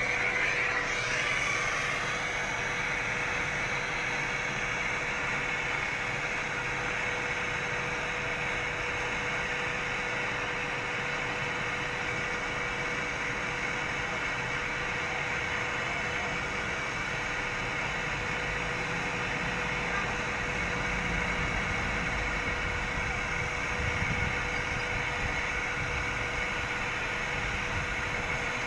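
Handheld gas brazing torch on a yellow gas cylinder burning with a steady hiss as it heats copper pipe on an air-conditioner condenser coil. A faint steady hum sits underneath.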